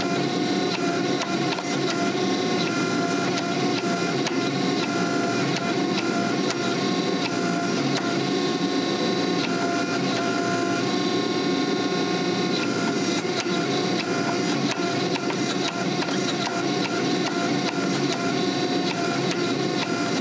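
12-ton hydraulic forging press running, its pump giving a steady whine over a rushing noise while the fullering dies squeeze the hot steel, with scattered small knocks.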